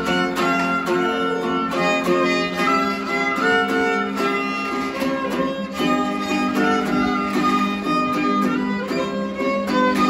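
A violin playing a lively dance melody over a guitar strummed in a steady rhythm.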